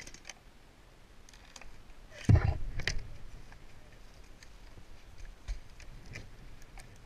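A single heavy thump about two seconds in, followed by scattered light clicks and knocks.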